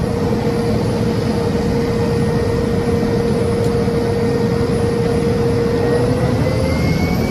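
Single-engine propeller plane's engine and propeller heard from inside the cabin: a loud, steady drone with a humming tone whose pitch starts rising about six seconds in as the engine speeds up, the start of the takeoff run.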